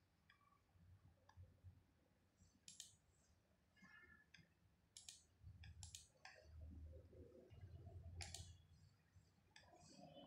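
Near silence broken by a few faint, sharp clicks a second or two apart, from clicking on a laptop, with a faint low rumble in the second half.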